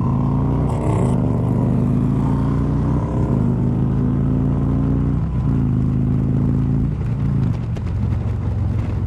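Harley-Davidson V-twin engine pulling under acceleration, heard from the bike itself, with short breaks about five seconds in and again around seven seconds as it shifts up a gear.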